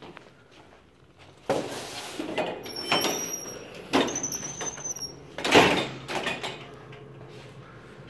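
A door being opened with a sudden clunk about a second and a half in, its hinges squeaking twice in high thin tones as it swings, then a loud thud a few seconds later as it shuts.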